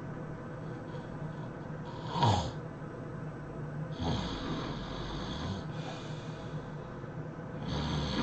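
A person snoring in irregular breaths. A short, loud sound with a sharply falling pitch comes about two seconds in, then a long hissing snore breath from about four seconds to five and a half, and another begins near the end.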